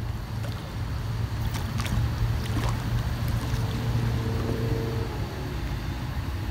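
A hooked small pike splashing at the side of a fishing kayak as it is pulled up, with a few light splashes and clicks. Under them runs a steady low rumble, the loudest part, and a faint held tone from about halfway through.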